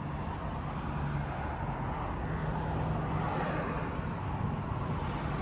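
Steady hum of road traffic, swelling a little midway as a vehicle passes.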